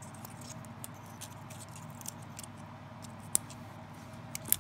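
Pine cone scales rustling and scratching as the cone is handled and trimmed with Corona branch and stem pruners, with faint crackles and two sharp clicks of the pruners about three and a half and four and a half seconds in.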